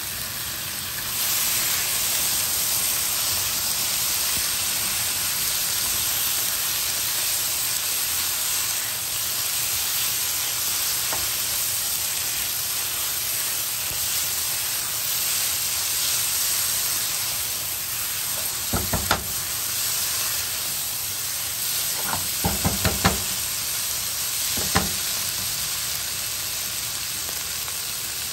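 Liver pieces sizzling as they fry in oil with onion and tomato masala in a nonstick pan, stirred with a silicone spatula; the sizzle gets louder about a second in. A few short clusters of knocks come about two-thirds of the way through, the spatula against the pan.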